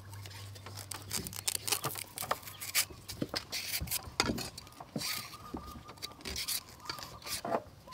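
Metal hand peeler scraping the skin off a green banana in a quick, irregular series of short rasping strokes.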